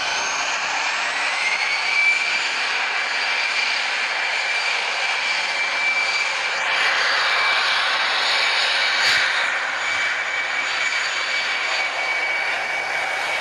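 Airbus A319-111's twin CFM56 turbofan jet engines at takeoff power during the takeoff roll. A loud rushing noise carries a high whine that rises in pitch over the first couple of seconds as the engines spool up, then holds steady.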